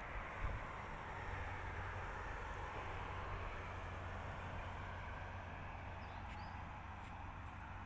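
Steady outdoor background rumble and hiss, with a single thump about half a second in and a couple of faint high chirps about six seconds in.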